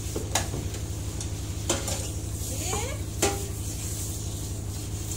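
Sambal chili paste frying in a wok with a steady sizzle, while a spatula stirs and knocks against the wok about every second and a half, over a steady low hum.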